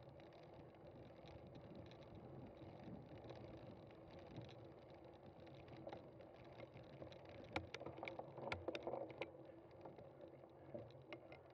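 Faint steady background noise with a low hum, broken about two thirds of the way through by a quick run of sharp clicks or knocks.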